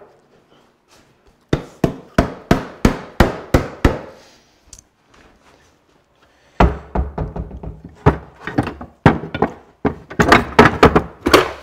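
A run of about eight sharp wooden knocks, roughly three a second. After a pause comes a longer spell of knocking and clattering as tools are rummaged through in an open wooden tool chest.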